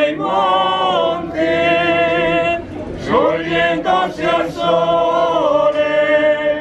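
Choir singing a cappella in harmony, holding long chords that change every second or so, with a brief break for breath near the middle.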